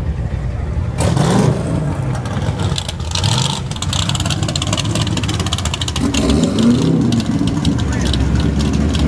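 Drag-race car engines running loud and revving, the pitch climbing about a second in and again around six seconds in, with a crackly rasp from about three seconds on.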